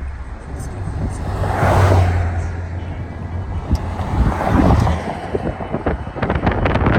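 Street traffic: vehicles passing twice with a low engine hum, and wind buffeting the microphone near the end.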